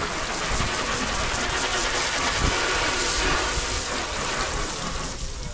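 Pressure washer spraying a jet of water onto a car's body: a steady hiss with a low rumble under it, thinning out near the end.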